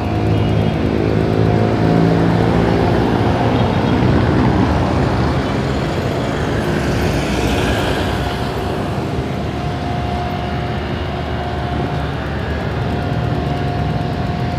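Road traffic: motor vehicles running along a nearby road, a steady engine and tyre noise that swells a couple of seconds in and again around the middle as vehicles pass.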